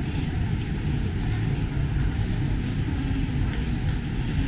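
Steady city street ambience: low traffic rumble with indistinct voices of passers-by.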